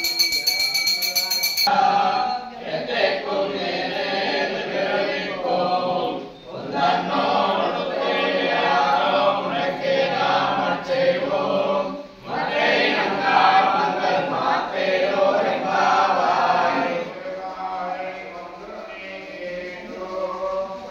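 A bell ringing for about a second and a half, then a group of voices singing a devotional chant together in phrases, with two short breaks, growing softer near the end.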